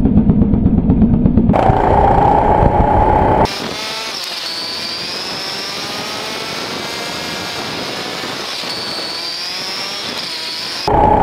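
Rental go-kart's four-stroke engine heard onboard while lapping: loud and steady for the first few seconds, then quieter and thinner from about three and a half seconds in with its pitch rising and falling as it speeds up and slows through corners, and loud again near the end.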